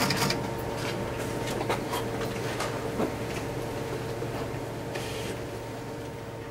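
Pellet cat litter rustling and clicking in a plastic litter box as Pallas's cat kittens tussle in it: scattered small scratches and ticks over a steady low hum.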